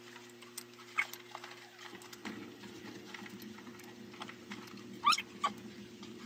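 A few short, high whining squeaks, one about a second in and two close together near the end, over a faint steady low hum.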